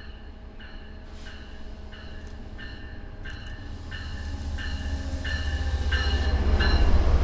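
An MBTA commuter train led by an MPI HSP46 diesel locomotive pulls into the station, its engine rumble growing steadily louder as it approaches. Its bell rings about every two-thirds of a second. Near the end the locomotive passes close by in a rush of noise.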